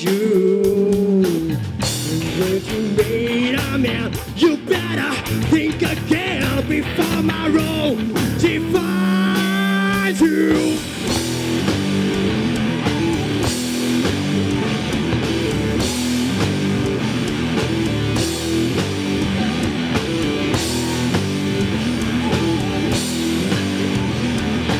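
Live rock band playing loud amplified electric guitars, bass and drums. A bending lead line rides over the band for about the first ten seconds, then the band settles into a steady, driving riff.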